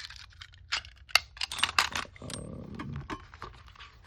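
Small hand tools and a box of driver bits being handled: a run of sharp clicks and light rattles, with a short scrape about two seconds in.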